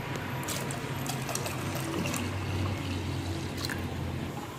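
Ragi (finger millet) flour batter being poured into a clay pot of boiling rice water: a steady liquid trickle and splash with a few light clicks, over a steady low hum.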